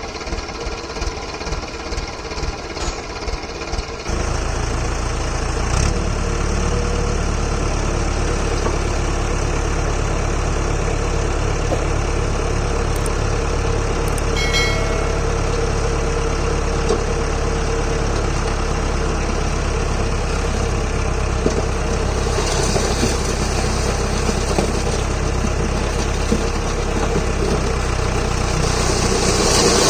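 Mahindra Arjun 555 DI tractor's diesel engine: slow, regular chugging for the first few seconds, then about four seconds in it picks up and runs steadily louder and deeper, working under the load of a fully loaded trolley.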